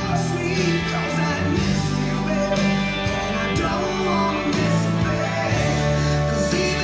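A song with a singing voice played back through a pair of JBL EON ONE column PA speakers, heard across the hall.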